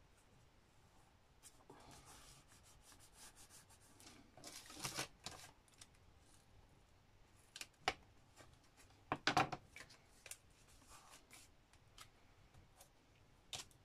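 Paper and card being handled and worked by hand: soft rustling and scraping with scattered light clicks, and a couple of louder rustling clusters partway through.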